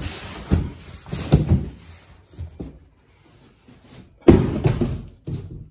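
Cardboard shipping box being dragged and opened to unpack a wrapped exhaust elbow: rustling and several knocks, then a loud thump a little over four seconds in.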